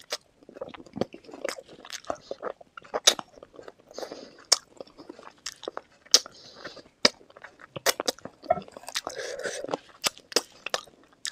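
Close-miked eating sounds: biting and chewing chicken feet in spicy curry, with sharp irregular crunches and clicks and wet mouth noises between them.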